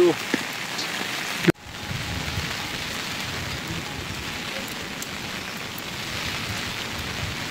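Steady rain falling. The sound cuts out for an instant about a second and a half in, then carries on unchanged.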